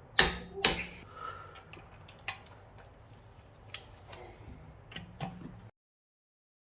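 Two loud, sharp metallic clicks close together, followed by a string of lighter clicks and taps, from hand tools being handled during a brake job. The sound cuts off abruptly near the end.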